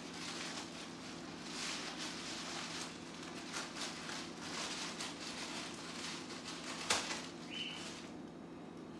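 Tissue paper rustling and crinkling irregularly as it is shifted about on the floor, with a sharp tap about seven seconds in and a brief high-pitched tone just after it, over a steady low hum.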